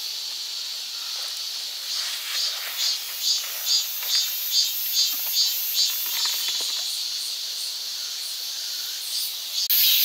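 Steady high-pitched buzzing of summer insects in a mountain forest, with one caller pulsing about two and a half times a second from about two to six seconds in.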